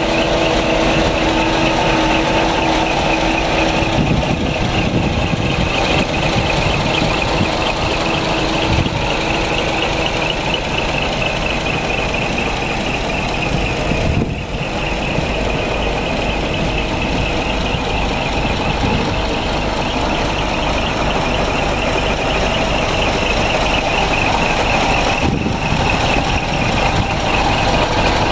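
Scania R420 truck's diesel engine idling steadily, with a constant high hiss over the rumble.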